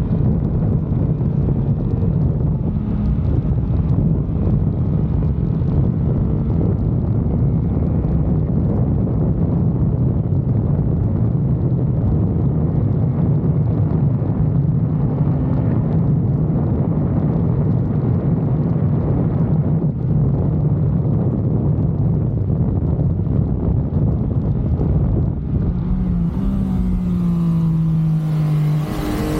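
Yamaha MT-09's inline three-cylinder engine and exhaust running steadily under way, with wind noise. Near the end the engine note drops and then climbs again.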